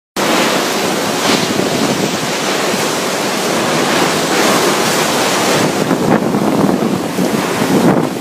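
Typhoon wind blowing loud and unbroken, with stronger gusts swelling now and then, mixed with driving rain and wind buffeting the microphone.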